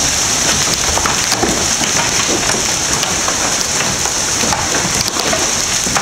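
Hailstorm of golf-ball-sized and bigger hailstones pelting down, a dense continuous clatter of many hard impacts.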